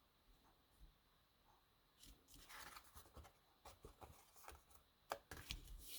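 Faint rustling and light taps of cardstock being handled and pressed down on a work surface, starting about two seconds in, with one sharper click about five seconds in.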